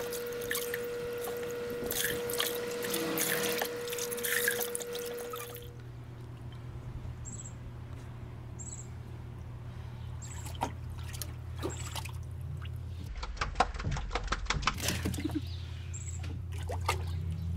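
Water being poured from a cup over a puppy in a plastic tub, splashing and trickling back into the water. Then quieter sloshing and scattered splashes of the puppy moving in shallow bathwater, with a busier run of splashing a little after halfway, over a steady low hum.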